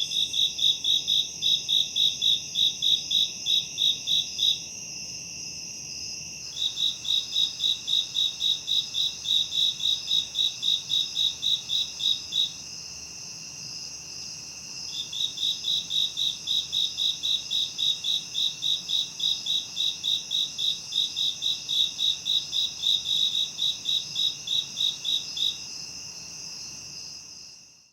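Crickets and other insects calling. A steady high-pitched buzz runs throughout, and one insect chirps in regular pulses, about three a second, in three bouts separated by short pauses. The sound fades out at the end.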